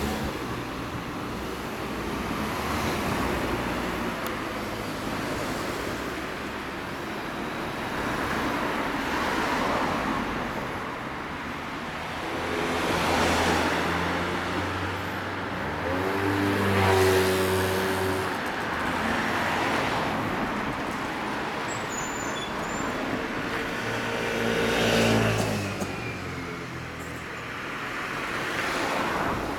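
Yamaha DragStar 250's air-cooled V-twin running through aftermarket American Dreams twin-soul mufflers, idling steadily with a few louder swells.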